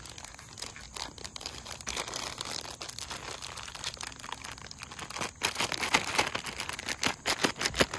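Clear plastic bag crinkling as it is handled, with test leads shifting inside. The rustling is irregular and grows louder and busier in the second half.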